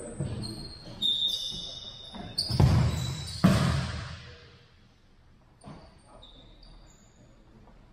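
Futsal ball thudding twice against feet or the hardwood floor, a little under a second apart, ringing on in the gym's echo. Short, high sneaker squeaks on the hardwood come and go around them.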